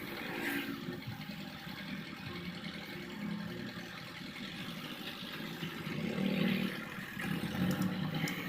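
An engine running, uneven in level and getting louder about six seconds in.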